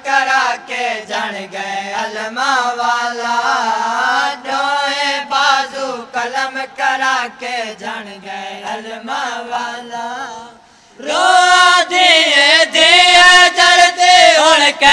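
Noha recitation: a man's voice chanting a Punjabi noha in long, wavering held notes, with chest-beating (matam) slaps keeping a steady beat about twice a second. About ten and a half seconds in the chant breaks off briefly, then a louder, higher voice takes it up again.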